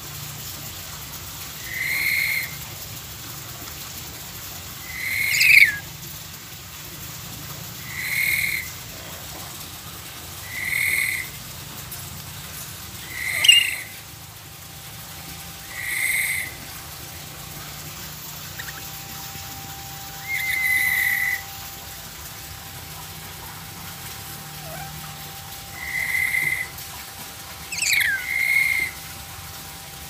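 Lory giving short whistled calls about every three seconds, about ten in all, a few with a sharp upward sweep in pitch.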